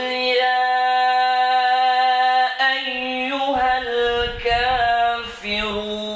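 A man's voice reciting the Qur'an aloud in a slow, melodic chant, holding long drawn-out vowels, with two short breaks between phrases.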